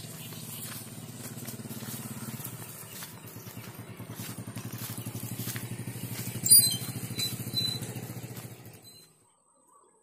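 A small engine running steadily, its low hum turning into a faster, even chugging beat about three seconds in. A brief sharp crackle about two-thirds of the way through is the loudest sound. The sound stops suddenly near the end.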